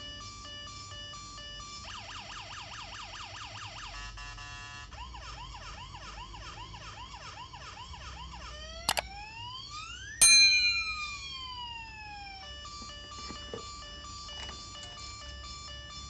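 Toy police car's electronic siren sound chip cycling through its patterns: pulsed beeping tones, rapid repeating rising wails, then two falling zap effects a little after the middle, the second the loudest, before the beeping tones return.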